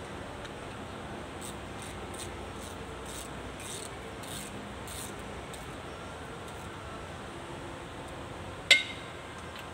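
Ratchet wrench worked back and forth on a bolt of a tractor's axle housing: a run of short ratcheting strokes, about two a second, then one loud metallic clank with a brief ring near the end.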